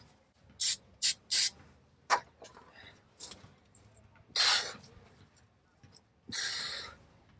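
Exhaust hanger work under a van: several sharp metal clicks and knocks in quick succession, then fainter ticks, then two short hissing bursts a couple of seconds apart.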